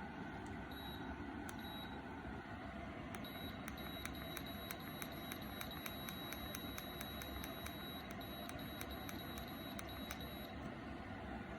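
OMISOON 2000 W fan heater running with a steady blowing hiss. A few single beeps come near the start, then from about three seconds in a run of quick electronic beeps or clicks from its control panel, about three or four a second, stops shortly before the end.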